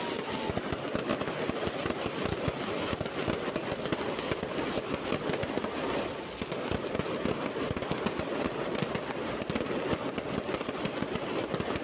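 Fireworks and firecrackers going off in a dense, continuous crackle of rapid sharp cracks, with no pause.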